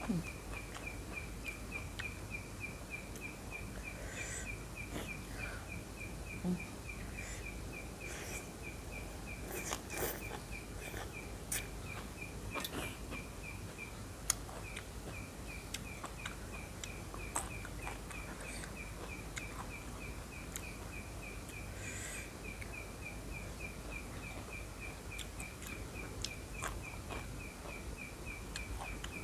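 An insect's high chirping, evenly pulsed several times a second and running on with one short break about halfway. Scattered soft clicks sound over it.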